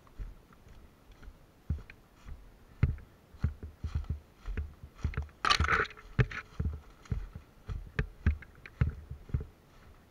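Irregular low thuds, two or three a second, typical of footsteps and gear knocking close to a body-worn camera microphone while moving, with a brief scratchy rustle about halfway through.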